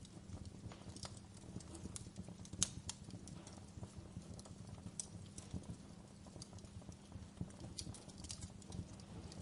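Wood fire crackling in a fireplace: a low steady rumble of burning with irregular snaps and pops, the sharpest pop a little under three seconds in.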